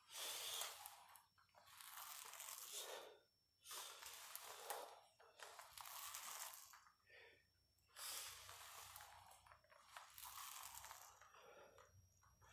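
Ab wheel rolling out and back over the floor in repeated rollouts: a faint gritty rolling noise in strokes of about a second, coming in pairs with short pauses between them.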